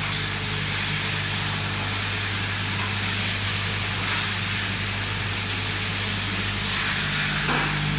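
Industrial walnut-cracking machine and its sorting and aspiration line running: a steady motor hum under an even, broad hiss.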